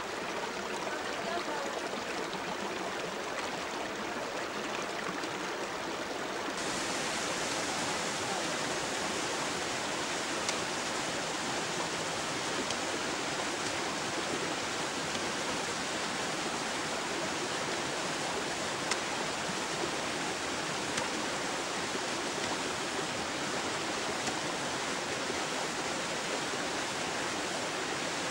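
Steady rushing of glacial meltwater; about six seconds in the sound turns brighter and a little louder.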